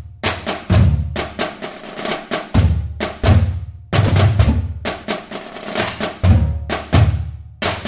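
Drum-heavy percussion music: rapid sharp drum strikes over deep bass-drum thumps about once a second.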